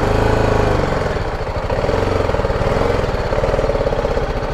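BMW G310 GS's single-cylinder engine idling steadily, heard close up.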